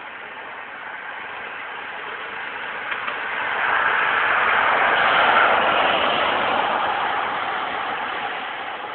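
A passing vehicle: a swell of traffic noise that builds to a peak about halfway through and fades away again.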